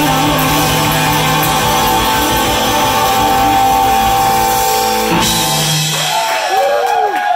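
Live surf-rock band playing loudly: electric guitar, drum kit and a contrabass balalaika. The music cuts off abruptly about five seconds in.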